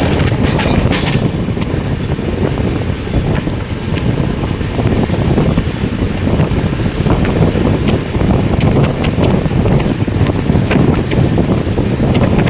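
Passenger train running: a steady low rumble from the moving carriage with scattered light clicks and rattles.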